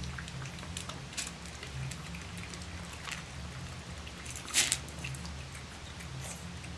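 Boston Terrier puppies eating dry kibble from a metal pan: scattered small crunches and clinks of kibble against the pan, with a louder clatter about two-thirds of the way through, over a low steady hum.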